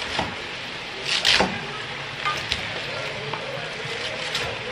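Cabbage frying in a pot with a steady sizzle, while a utensil stirs and scrapes against the pot, knocking several times with the loudest clatter about a second in.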